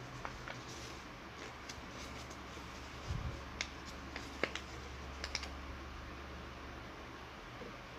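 Square of origami paper being folded and creased by hand: scattered light crackles and clicks of paper, with a soft bump about three seconds in.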